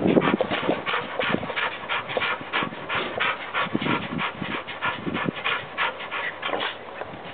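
Yellow Labrador dog panting fast and steadily, about four or five breaths a second, with a few deeper huffs mixed in.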